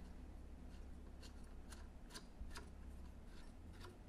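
Faint, light clicks of small metal parts, roughly two a second, as a screw is worked in to fasten a handle onto a longarm quilting machine's head.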